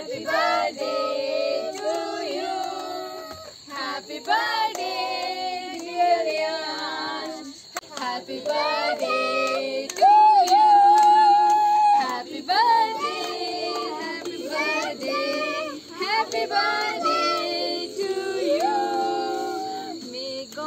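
A group of children and women singing a birthday song together, unaccompanied, in held notes with short breaks between lines.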